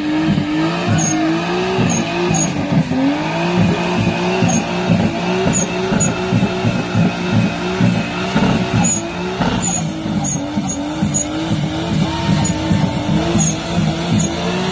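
Nissan S13 with a swapped RB20DET turbocharged straight-six, held at a steady high engine speed in a stationary burnout, its rear tyres spinning and squealing.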